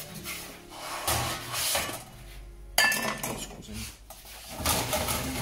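Aluminium baking tray scraping and clanking against the metal rails of a home oven as it is handled and slid in, with a sharp metallic clang about three seconds in that rings briefly.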